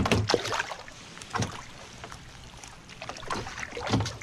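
Irregular splashes and knocks as a fishing net is hauled out of the water over the side of a small wooden outrigger canoe. Several come close together at the start, then fewer, with a few more near the end.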